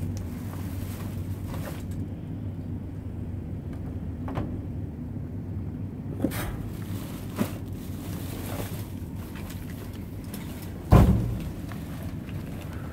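Plastic trash bags holding books being pulled and shifted about in a dumpster, with a few small clicks and one loud thump about eleven seconds in, over a steady low hum.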